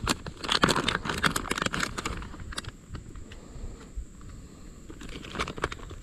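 Plastic soft-bait bag crinkling as it is handled and opened, in a flurry of crackles for about the first two seconds and again near the end.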